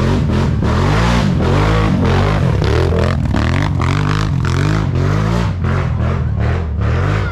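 ATV engines revving up and down, mixed with a rock music track with a steady drum beat and bass.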